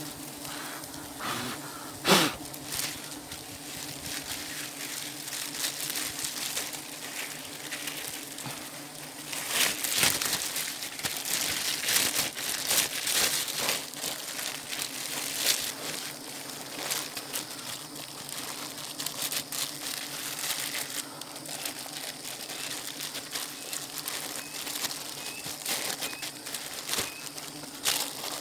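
Honeybees from a disturbed wild colony buzzing in a steady drone, with leaves, twigs and the net veil rustling and crinkling close to the microphone. There is a sharp crack about two seconds in, and the rustling is heavier in the middle.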